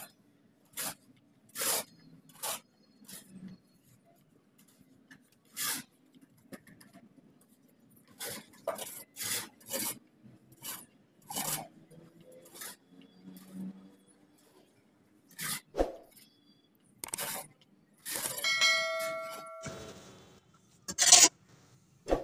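Steel shovels scraping and rasping through a heap of cement-and-sand mix on a concrete floor, in irregular strokes as the mix is turned. Near the end comes a brief metallic clang that rings with several steady tones.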